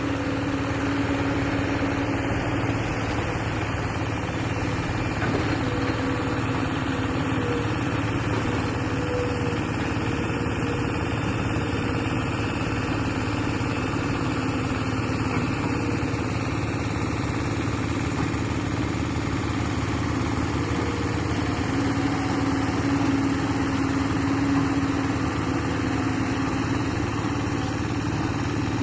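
Engine of a construction machine at a pond dig, running steadily at an even speed.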